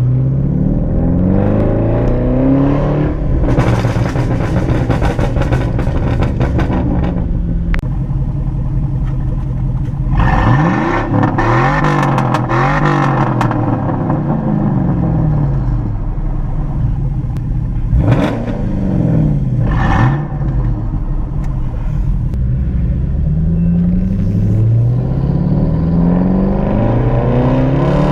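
Straight-piped Jaguar XF exhaust under hard acceleration: the note climbs in several quick sweeps, falling back at each upshift. In between come a run of crackling, revs blipped up and down, and two sharp pops.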